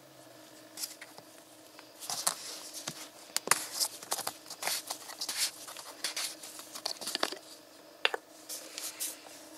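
Red plastic screw cap of a one-litre motor-oil bottle being twisted open by gloved hands: a run of irregular plastic clicks and crackles, with a few sharper snaps.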